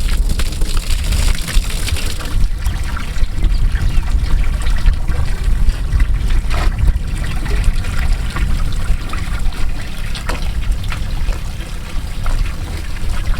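Water pouring steadily into a livestock water tank from a pump's discharge hose, filling the tank at about 35 gallons a minute. A steady low rumble runs underneath.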